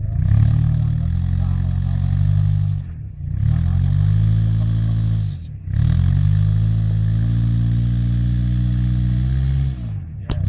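Small 4x4 SUV's engine revving hard under load as it crawls over rocks, easing off and picking up again about three seconds in and around five and a half seconds, then held high for several seconds before dropping away near the end. There is a sharp click just before the end.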